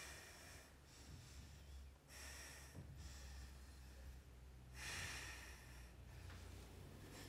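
A woman breathing faintly, with slow audible breaths a couple of seconds apart, over a low steady hum.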